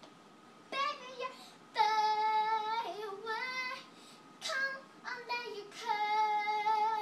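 A young girl singing short phrases of held, high notes with brief gaps between them.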